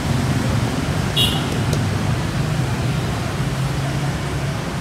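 Steady street traffic: a continuous rumble of passing engines on a busy road, with a brief high tone about a second in.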